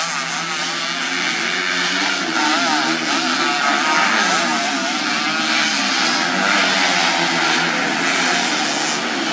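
A pack of underbone (bebek) racing motorcycles running flat out on a dirt track, several engines revving up and down at once so their notes overlap and waver.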